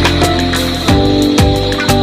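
Loud background music with a steady beat, pitched instruments and deep drum hits about twice a second.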